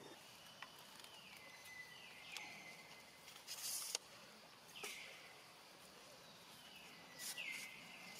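Faint outdoor ambience of animal calls: about three high, hissy calls, each sliding down and settling into a steady high tone that holds for a moment, with a few sharp clicks in between.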